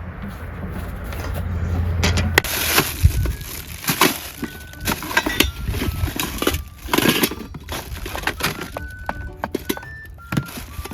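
A low rumbling noise, then a run of clattering and clinking as hard objects are handled, with short high tones coming in near the end.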